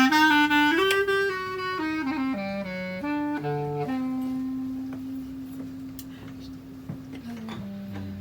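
Solo clarinet playing a jazz line alone: a quick run of notes, then one long held note that fades, stepping down to lower notes near the end.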